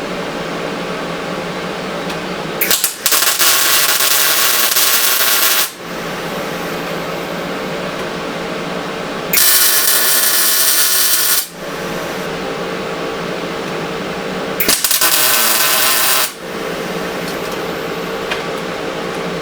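Welder arc tack-welding sheet steel in three bursts of crackling hiss, each two to three seconds long, that start and stop abruptly over a steady machine hum.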